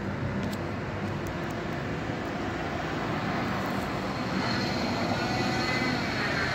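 A steady engine drone of passing traffic, growing slowly louder.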